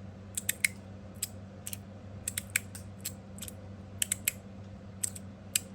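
Copper and stainless steel magnetic fidget slider being worked by hand, its stainless plates snapping into place with sharp metal clicks. The clicks are irregular, often two or three in quick succession.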